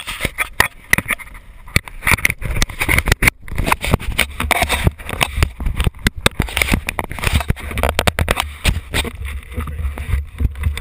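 Knocks, scrapes and rubbing from the camera being handled and fastened to an ATV's front. Under them is the low, steady running of an idling quad engine.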